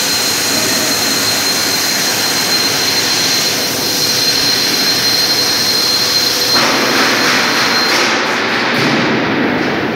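Loud, steady machinery noise with a thin high whine over it. It turns fuller and rougher about six and a half seconds in, and the whine drops out near the end.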